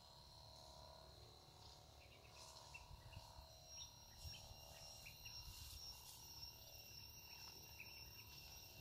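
Near silence, with faint steady high insect calls in the field; a second, higher call joins about three seconds in.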